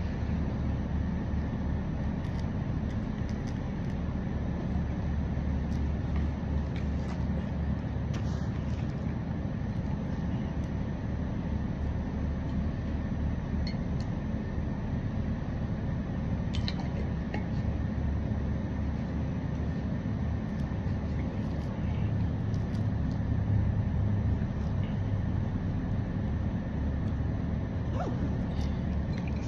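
Steady low rumble of background noise, with a few faint clicks over it.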